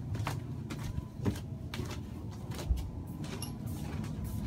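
Footsteps and knocks of people climbing a boat's interior stairs, a scatter of short clicks and thuds, the loudest a dull thump a little past the middle, over a low steady hum.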